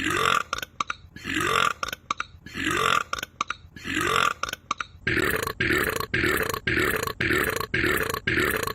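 Belches repeated at a steady pace, each with a rising pitch, about one a second at first, then speeding up to about three a second about five seconds in.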